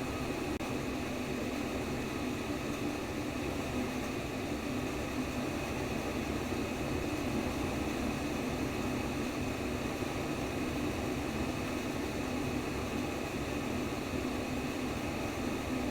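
Steady white noise for baby sleep: a constant, even rushing hiss with a slightly heavier low hum in it, broken only by a split-second dropout about half a second in.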